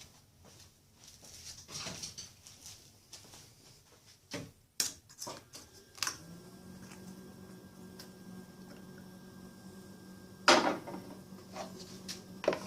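Scattered clicks and clatter of hands and tools at work, with a loud knock about ten and a half seconds in. A steady low hum starts about six seconds in and runs on.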